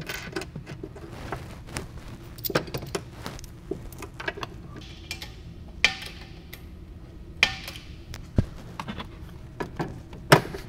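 Irregular metallic clinks and knocks as mounting bolts and a rear shock absorber are handled and fitted by hand, with a few sharper clanks scattered among them.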